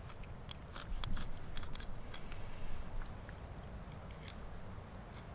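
Leatherman knife blade cutting through a greenling's flesh and small rib bones: a run of short crunching snips and clicks, busiest in the first three seconds, with one more near the end.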